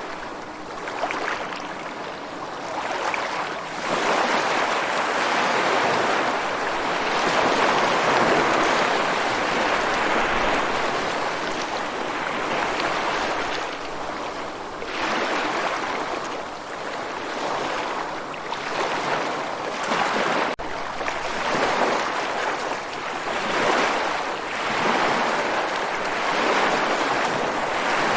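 Ocean surf washing ashore: a steady rush of water noise that swells and falls back in surges, one long wave lasting about ten seconds followed by several shorter ones. A faint click is heard about two-thirds of the way through.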